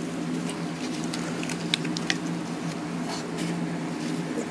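Faint scattered clicks and rubbing from gloved hands gripping and tugging the splined driveshaft coupling at the end of a Porsche 928 torque tube, the shaft stuck fast, over a steady low hum.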